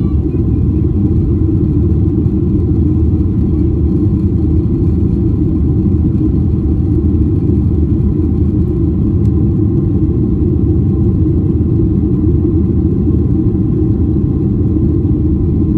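Steady low rumble inside the cabin of a Boeing 737-800 in its initial climb after take-off: its CFM56-7B turbofans at climb thrust together with the rush of air past the fuselage.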